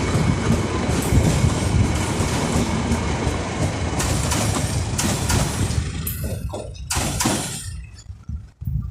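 Train rolling past close by as it pulls out of the station, a steady rumble with the wheels clacking over rail joints. Near the end the noise drops away as the last car goes by.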